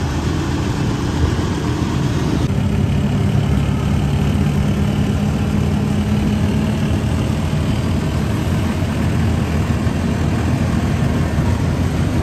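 Rickshaw engine running steadily with a low, even hum; a higher hiss drops away about two and a half seconds in.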